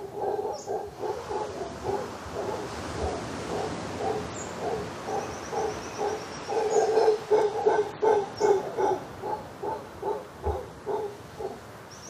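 Mantled howler monkey giving a long run of rhythmic grunting calls, about three a second, louder for a stretch in the middle.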